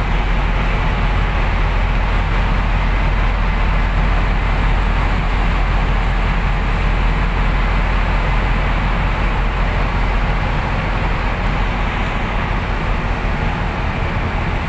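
Steady low rumble and rushing noise aboard a moving passenger ferry: the ship's engines droning under the rush of wind and water.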